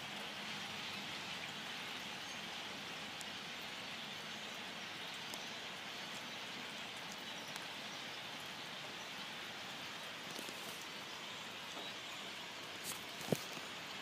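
Noisy, steady chorus of a large flock of birds calling all at once, so many voices that they blend into one continuous din. A single sharp knock near the end.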